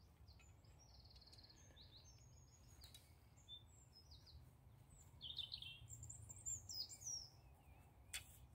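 Faint birds chirping: quick high chirps and short trills, busiest in the second half, over a low steady rumble, with one sharp click near the end.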